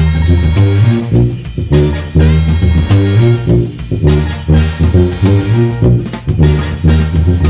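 A sousaphone plays a low, punchy funk bass line in short repeated notes. It plays over a band backing with drums and higher brass or sax stabs.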